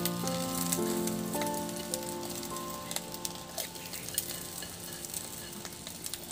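Egg white frying in a little refined vegetable oil in a pan: a steady sizzle with fine crackles. Sustained notes of background music play over it for the first few seconds, then fade out.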